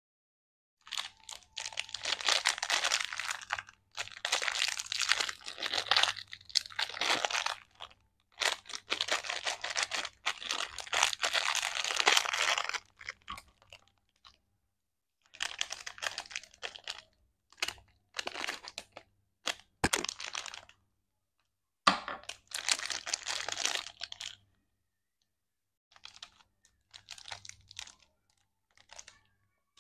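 Plastic lollipop wrapper crinkling and tearing as it is handled and opened. The crackling comes in long spells through the first half, then in shorter, sparser bursts, with a sharp click about twenty seconds in.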